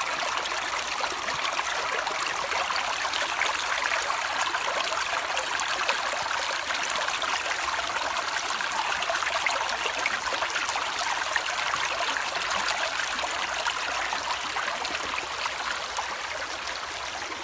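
Shallow river water running steadily through a small gold-prospecting sluice box and over the stones around it, a constant rush and trickle.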